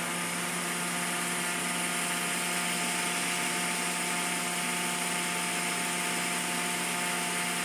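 A steady machine hum holding one unchanging pitch.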